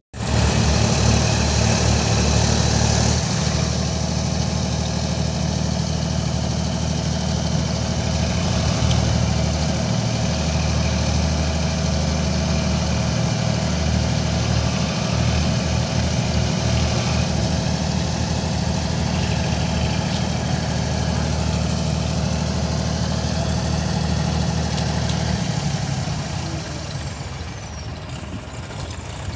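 Diesel tractor engines running steadily, a low rumble, as a tractor stuck axle-deep in mud is pulled out by others. The engine sound drops a little near the end.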